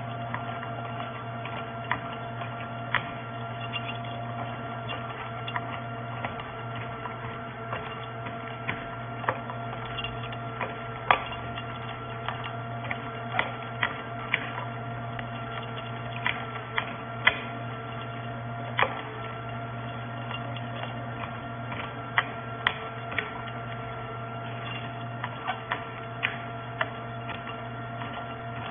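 FELI NBM-400 electric nut butter grinder running steadily with a low hum while grinding almonds into almond butter. Irregular sharp clicks and ticks come over the hum.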